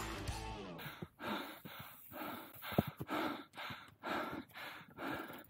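Music ends about a second in, then heavy, quick breathing, about two breaths a second, from someone out of breath while hiking uphill.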